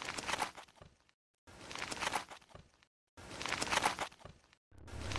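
Scratchy rustling sound effect for an animated dung beetle rolling its ball, in bursts about a second long that repeat about every second and a half with dead silence between them.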